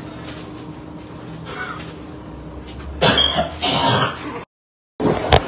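A man makes two short, harsh noises with his mouth and throat, about three and four seconds in, over quiet room noise with a faint hum. The sound then cuts out briefly, and a sharp click follows.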